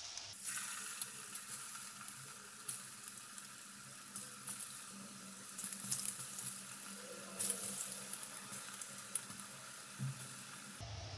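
Potato fries deep-frying in hot ghee in a kadhai: a steady sizzle of bubbling fat with scattered crackles. This is the first, partial frying, before the fries are taken out and fried again to make them crisp.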